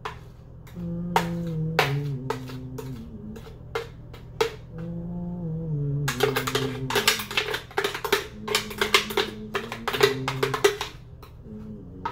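Background music with a drum beat and a stepping bass line and melody.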